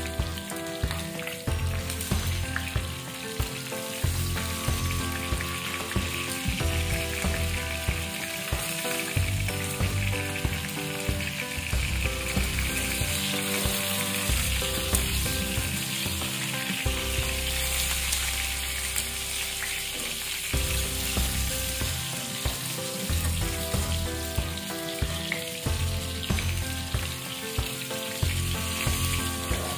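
Mini martabak, wonton-wrapper parcels of chicken and egg, sizzling steadily as they shallow-fry in hot oil in a pan.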